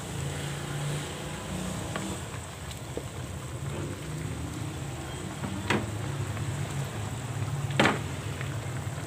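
Chicken adobo with potatoes simmering in a pan, a steady low hum under a soft bubbling hiss. A wooden spatula knocks sharply against the pan twice, a little after the middle and near the end.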